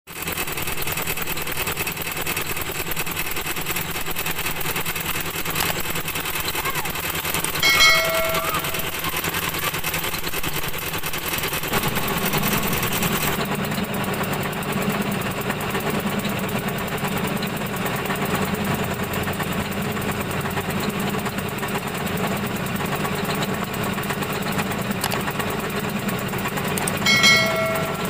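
Kubota DC-70 Plus combine harvesters' diesel engines running steadily; the sound shifts about twelve seconds in. A short chime sounds twice, about eight seconds in and near the end, and is the loudest thing heard.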